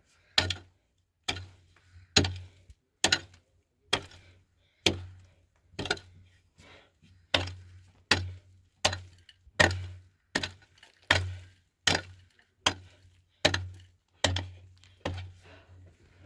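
Repeated sharp knocks or strikes, a little over one a second, each with a short dull thud.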